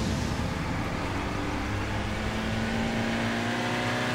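Toyota Hilux pickup's engine running as the truck crawls over soft, muddy ground, its note rising slowly.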